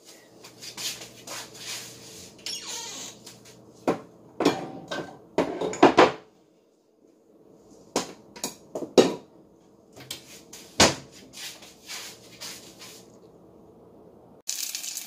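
Kitchen clatter: a string of sharp knocks and clinks of cookware and cupboards being handled, over a low steady hum. A steady hiss starts near the end.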